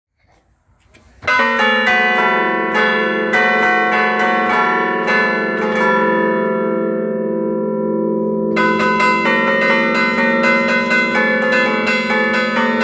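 Church bells played from a keyboard (tastiera) in the Bergamasque allegrezza style: the bells hang still and are struck by their clappers in a quick melodic pattern. The ringing starts about a second in, thins to a few strokes that ring out around the middle, then picks up again with fast strikes.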